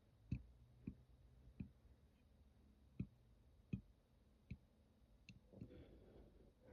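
Near silence broken by faint, short clicks at irregular spacing, roughly one a second, with a soft breathy rustle near the end.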